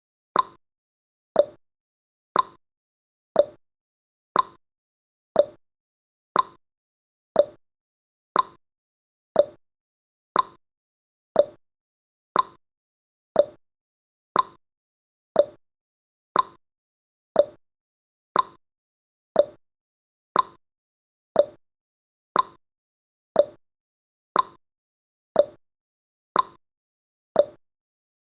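Countdown timer tick sound effect: one short, sharp tick every second, marking off each second of the countdown.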